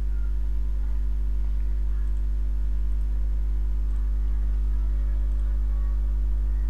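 Steady electrical mains hum in the recording: a constant low 50 Hz drone with a ladder of steady overtones above it, unchanging throughout.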